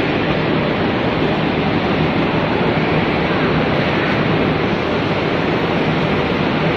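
Automatic folder gluer running, a steady even mechanical noise from its belt conveyors and drive as corrugated carton blanks feed through, with a faint low hum underneath.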